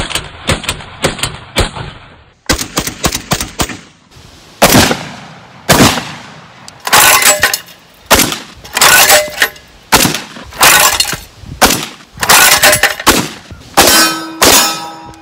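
A Tokarev TBP semi-automatic 12-gauge bullpup shotgun firing shot after shot, each a sharp blast with a short echo. The shots come in quick strings, often two within about half a second.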